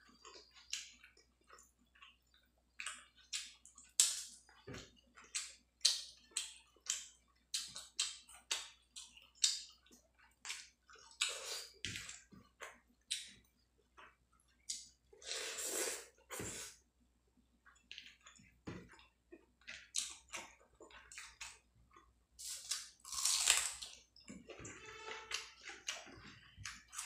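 Close-up chewing of rice and fish fry, with many short wet lip smacks and mouth clicks, and two longer hissing sounds, one about midway and one near the end.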